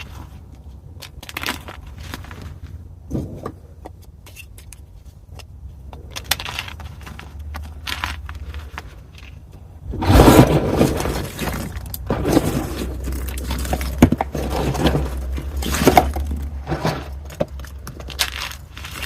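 Pieces of gym chalk (magnesium carbonate) being crushed, crunching and crumbling: scattered small crackles at first, then a loud crunch about halfway through, followed by denser crunching.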